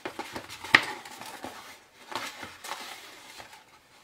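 Paper mailing envelope being handled and opened: irregular rustling and crinkling of paper, with one sharp click about three quarters of a second in.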